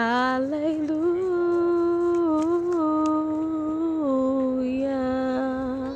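A person humming a slow tune in long held notes: the voice slides up at the start, holds a higher note with small wavers, and steps down to a lower held note about four seconds in.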